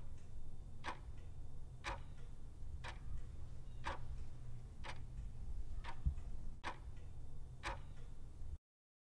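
Clock-ticking sound effect used as a quiz countdown timer, one sharp tick a second over a low steady hum. It cuts off abruptly near the end.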